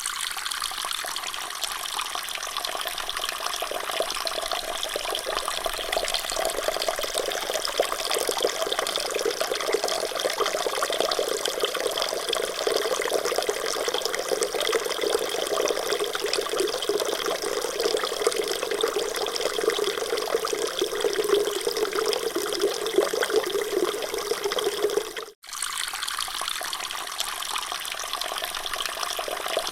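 Water running in a steady, continuous rush. It cuts out for a split second about 25 seconds in, where the recording loops, then starts again.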